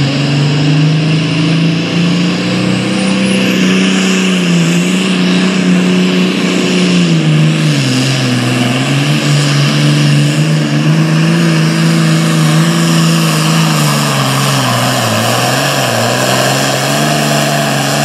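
International 1066 Super Farm pulling tractor's diesel engine running flat out under the load of the sled. Its pitch sags several times and partly recovers as the drag bogs it down.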